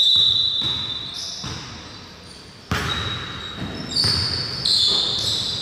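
A basketball bouncing on the court, with sneakers squeaking on the floor in short, high squeals: one at the start, another about two and a half seconds in, and a cluster near the end.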